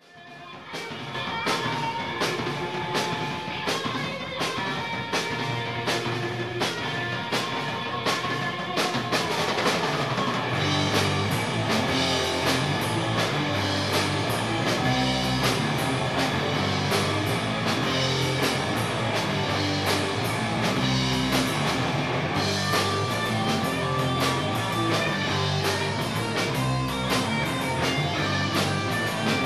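Live rock band playing an instrumental passage: two electric guitars, one a Les Paul-style guitar, over a drum kit with steady cymbal strokes. About ten seconds in, the bass and kick drum come in and the sound fills out.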